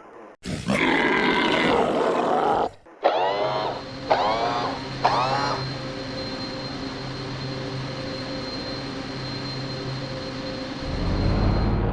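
Sci-fi spaceport ambience sound effects. A rough, creature-like growl comes in the first couple of seconds, then three short pitched calls about a second apart. After that a steady machine hum with a thin high whine runs on, and a deep rumble swells near the end.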